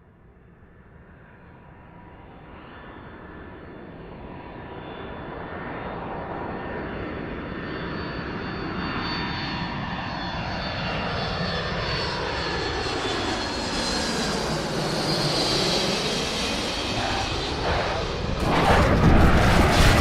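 Sound effect of an aeroplane's engines approaching and growing steadily louder, their pitch sweeping as the plane draws near. Near the end it breaks into a sudden loud crash: the start of the impact.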